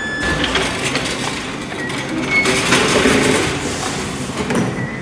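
Wheeled serving cart carrying a meal tray rattling as it is pushed, with many small clicks and knocks and a few brief high squeaks. A door handle is worked and the door opened near the start.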